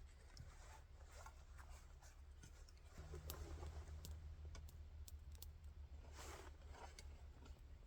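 Near silence: a low steady hum with scattered faint clicks and a few soft rustling swishes, one about six seconds in.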